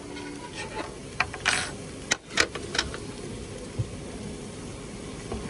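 Tableware clatter at a dining table: a handful of sharp clicks and knocks, with one short hiss among them, clustered between about one and three seconds in, over a steady background hum.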